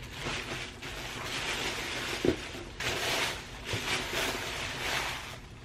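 Thin plastic shopping bag rustling and crinkling while it is handled and something is taken out of it, with a soft knock a little over two seconds in.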